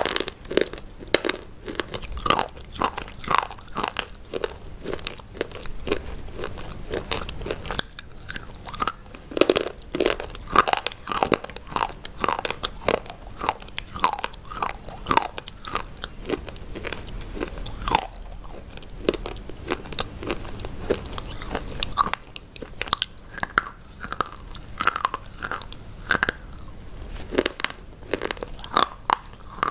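A person biting and chewing hard, brittle white sticks right at a microphone, giving sharp crunches and crackles several times a second. There is a short quieter stretch of chewing in the second half.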